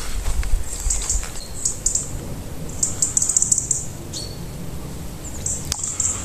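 Small songbirds chirping in short, high bursts every second or so, one call dropping in pitch about four seconds in, over a low rumble that is strongest in the first second.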